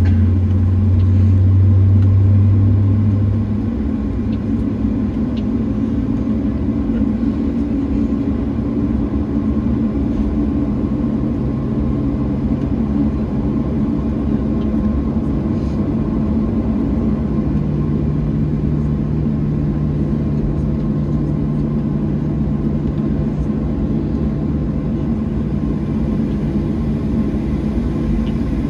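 Steady low rumble inside the cabin of a Boeing 737-700 during pushback. A loud low hum cuts off about three and a half seconds in, and later a low tone steps up in pitch twice.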